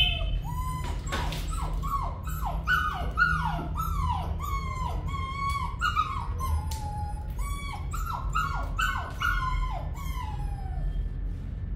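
A puppy whining and crying over and over, each short cry sliding down in pitch, the cries stopping near the end.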